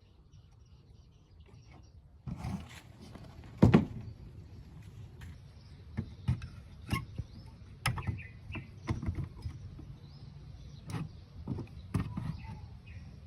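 A series of irregular sharp clicks and knocks, like small objects being handled and set down on a hard surface, starting a couple of seconds in, with one louder knock soon after.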